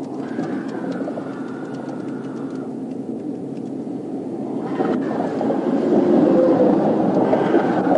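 Highway traffic noise: a steady rumble of passing vehicles, swelling as a vehicle goes by in the next lane about five to seven seconds in.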